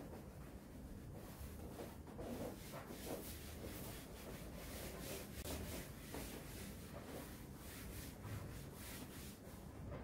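Hand and cloth rubbing over the surface of a folding foam play mat in repeated wiping strokes.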